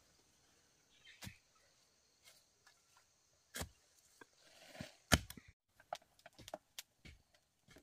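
A few sharp knocks with brief rustling of leaves and undergrowth as a tool works at the ground, the loudest about five seconds in. Then quick, light clicks of chopsticks stirring and tapping in a plastic bowl.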